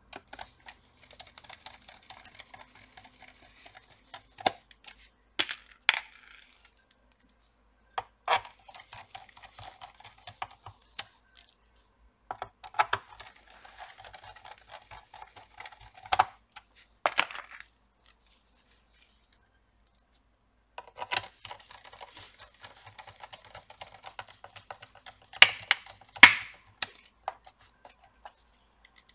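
Small screws being driven into a laptop's plastic bottom cover with a precision hand screwdriver: four stretches of fine, rapid clicking as the screwdriver turns, broken by single sharper clicks and taps, the loudest near the end.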